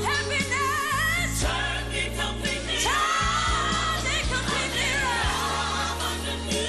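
Slow soul/R&B ballad: a female lead vocal sings wavering runs with vibrato, then holds a long note about three seconds in, over steady bass.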